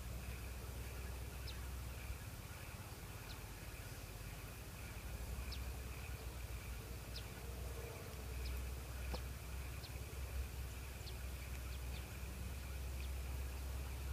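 Quiet outdoor ambience by a pond: a steady high insect drone, scattered short high chirps of birds, and a low rumble of wind on the microphone.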